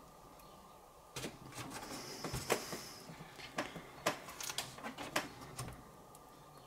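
Monitor and its packaging being handled during unboxing: a run of scattered clicks, knocks and rustles of plastic and cardboard, starting about a second in.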